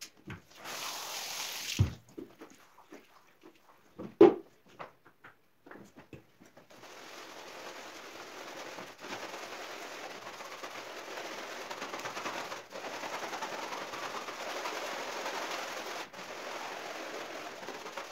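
Scattered knocks, a short hiss and one sharp knock, then a long-handled scrub brush scrubbing a foam-covered rug on a tiled floor: a steady, rasping scrub for the last two-thirds.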